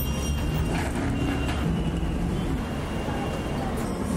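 Steady low rumble of a vehicle running and street traffic, heard from inside a moving car.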